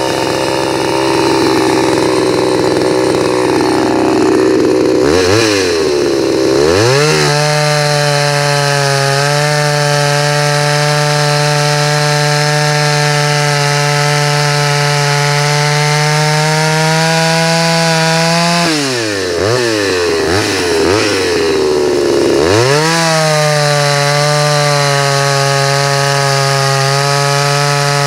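Homelite XL123 two-stroke chainsaw held at full throttle, cutting through green oak with a freshly touched-up chain. The engine drops back and revs up again twice, about five seconds in and again about two-thirds of the way through, with a few short throttle blips the second time.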